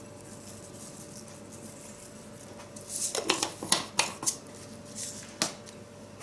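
A run of sharp clicks and rattles from a small red-topped spice container worked over a dish of vegetables, after about three quiet seconds with a faint steady hum. One last sharp knock comes near the end.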